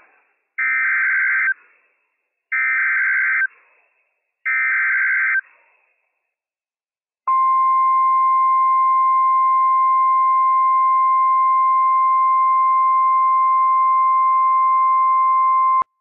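NOAA Weather Radio Emergency Alert System signal for a severe thunderstorm warning. Three one-second warbling SAME data bursts are followed, after a short pause, by the steady 1050 Hz warning alarm tone, which runs about eight and a half seconds and cuts off suddenly.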